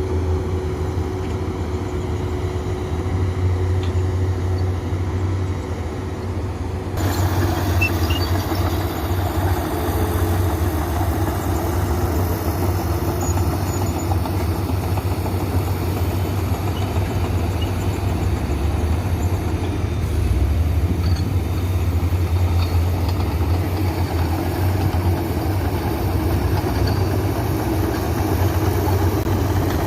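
Komatsu PC200 excavator's diesel engine running steadily with a deep hum, growing louder and fuller about seven seconds in as the machine works.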